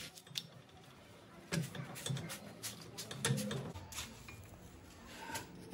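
Scattered light clicks and taps of kitchen handling as rotis are turned by hand on an iron tawa.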